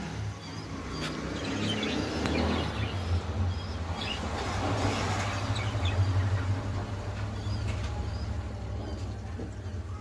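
Steady low hum of an aquarium's pump with rushing, bubbling water that swells in the middle, and a few faint bird chirps in the background.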